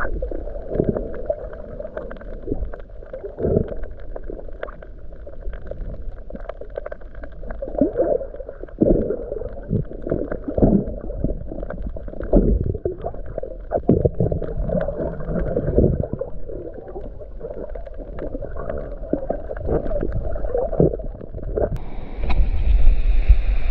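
Muffled underwater gurgling and sloshing heard through a submerged microphone, broken by irregular dull thuds. Near the end the microphone comes up out of the water and the sound turns suddenly brighter.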